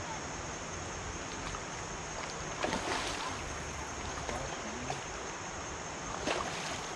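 Steady rush of flowing river water under a continuous high insect drone, with two brief louder noises, about three seconds in and near the end.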